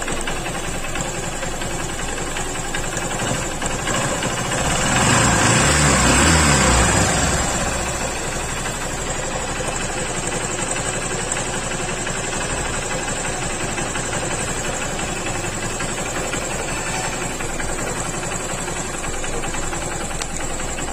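Honda CB Shine's single-cylinder four-stroke engine idling steadily, with one rise in engine speed about four seconds in that falls back to idle by about eight seconds. It is being run to check for a cam chain tensioner rattle, which the mechanic puts down to a worn tensioner spring; just after this he says the noise is not there at the moment.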